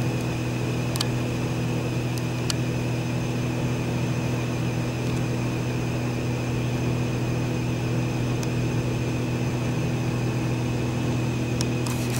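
A motor or engine running steadily: an even low hum with several fixed tones over it and a few faint clicks.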